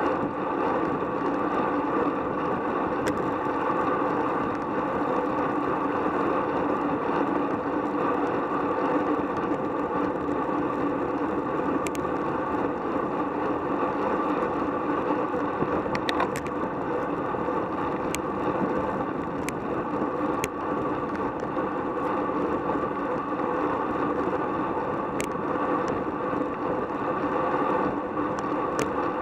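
Steady rush of wind over the microphone of a camera on a road bike moving at over 20 mph in a racing pack, with road and tyre noise beneath and a few faint clicks here and there.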